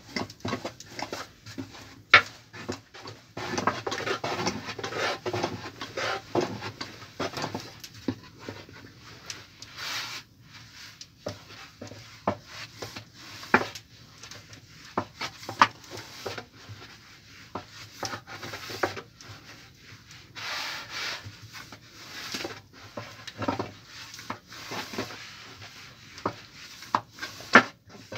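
Long, thin wooden rolling pin (oklava) rolling dough out thin on a floured wooden board: repeated rubbing strokes, with sharp knocks now and then as the pin strikes the board.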